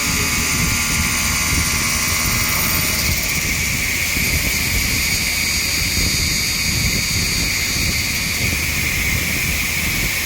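Five-axis CNC router running, its spindle giving a steady high whine over a constant low rushing noise. Some fainter tones drop out about three seconds in.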